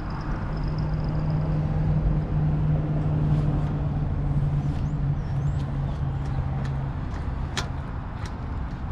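Honda Rebel 500 parallel-twin engine running steadily through a Vance & Hines exhaust, its hum swelling slightly and then easing off. A few light clicks near the end.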